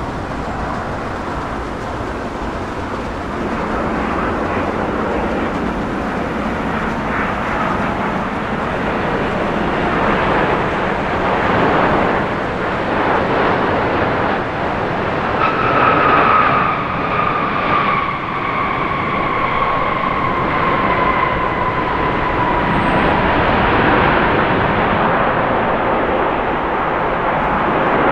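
Boeing 787-9 Dreamliner's jet engines, a loud steady rush as the airliner goes by. About halfway through a whining engine tone comes in and slowly falls in pitch.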